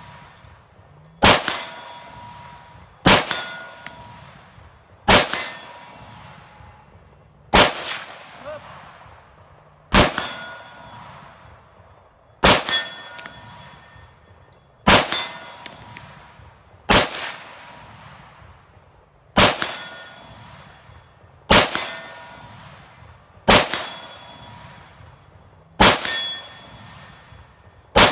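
CMMG Mutant MK47 semi-automatic rifle, chambered in 7.62×39, firing about a dozen single shots in steady succession, roughly one every two seconds. A short ringing tone lingers after each report.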